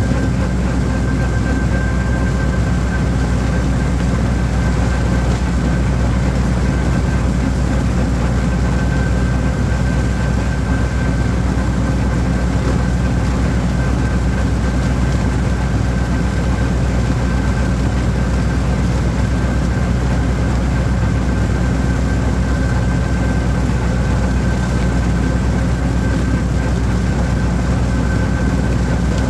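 Holder orchard tractor's engine running steadily while mowing weeds, with a thin steady whine above the engine note.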